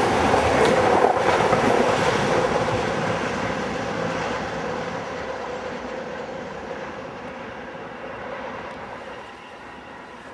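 Class 377 Electrostar electric multiple unit passing close beneath and running away, its wheel and running noise loud at first and fading steadily as it draws off, with a steady hum under it.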